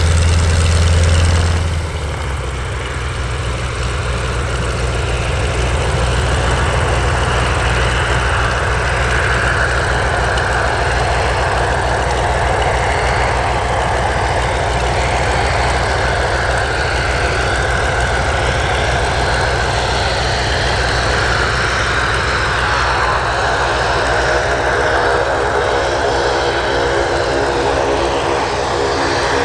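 Boeing Stearman PT-13D Kaydet's Lycoming R-680 nine-cylinder radial engine and propeller running steadily at low power. Its deep low hum drops off about two seconds in, and a second layer of even tones builds near the end.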